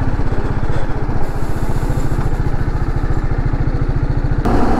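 Single-cylinder sport motorcycle engine idling, a steady even low pulsing. Near the end a louder rushing noise comes in suddenly.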